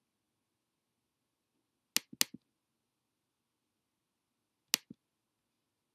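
Sharp computer pointer clicks: two close together about two seconds in and one more near five seconds, each followed by a fainter second click.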